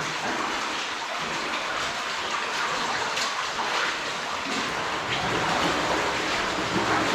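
Running water in a cave, a steady rushing hiss that grows a little louder toward the end.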